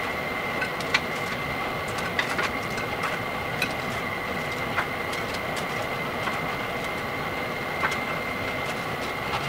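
Hot frying oil in a cast-iron pot sizzling steadily, with a faint high tone underneath. About half a dozen light sharp clicks stand out, like chopsticks tapping the wire draining rack as the fried chicken pieces are moved.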